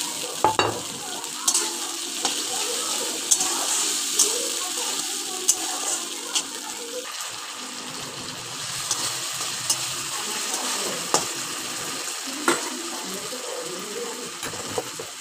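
Ginger, cumin and chilli paste frying with chickpeas in hot oil in a metal wok, a steady sizzle, with a metal spatula clinking and scraping against the pan about once a second.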